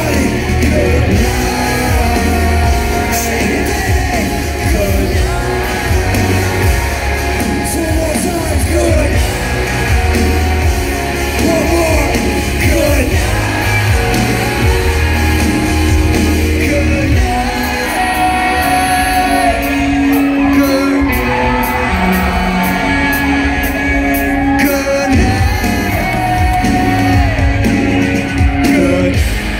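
Live rock band playing loud, with singing and a crowd yelling along, heard from among the audience.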